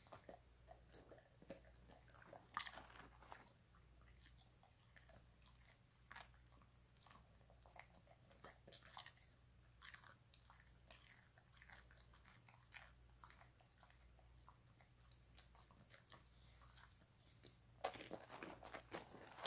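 A dog chewing popcorn: faint, irregular crunches and mouth clicks, with a louder run of crunching near the end.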